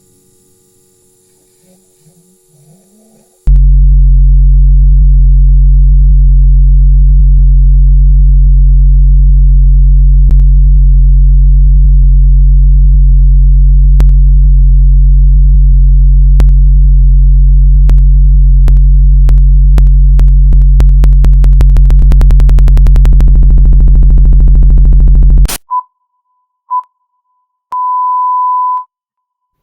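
A faint hum, then about three and a half seconds in a sudden, extremely loud low electronic drone at near full volume, with clicks that come faster and faster until it cuts off abruptly. Then two short high beeps and a longer one at the same pitch.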